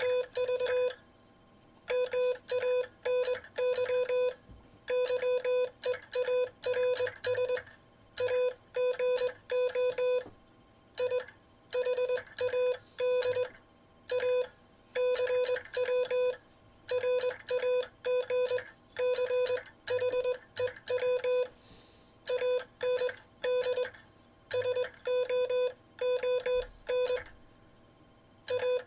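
Morse code sent on a Vibroplex semi-automatic bug key, heard as a single keyed beeping tone: quick dots and longer dashes run together into letters and words, with short pauses between words. It is sent in the classic bug style, with some of the timing a little off.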